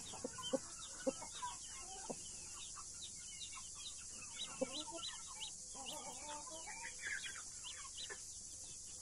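Australorp and Brahma chicks peeping constantly in short, high chirps, with a mother hen's low clucks now and then.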